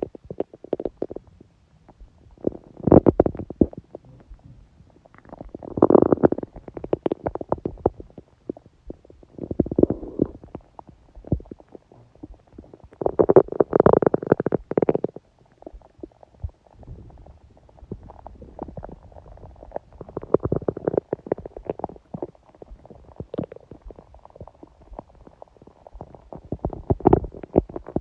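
A woman's stomach growling in about six separate gurgling bouts a few seconds apart, the longest and loudest about halfway through, with faint gurgles between them. The growling comes during her period, which she describes as a dull ache.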